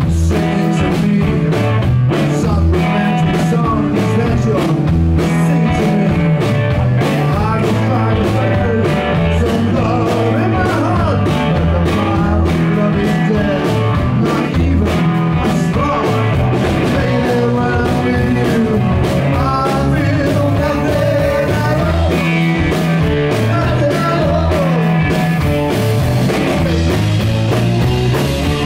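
Live garage rock band playing loud: a male lead vocal sung over electric guitar, a bass line and drums, heard through the club PA.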